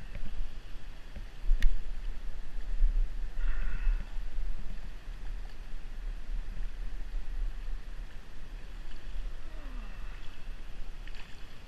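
Low rumble of wind buffeting the microphone over the even hiss of a shallow stream, with one sharp click about one and a half seconds in.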